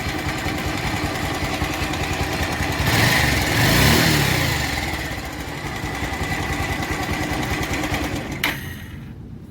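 Bajaj Pulsar 180 BS4's air-cooled single-cylinder engine running with the abnormal mechanical noise of a slack or worn timing chain. It is revved once about three seconds in and falls back to idle. A sharp click comes near the end, after which it is quieter.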